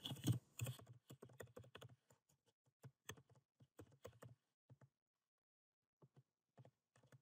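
Faint typing on a computer keyboard: a quick run of keystrokes for about the first five seconds, a pause, then a few more keystrokes near the end.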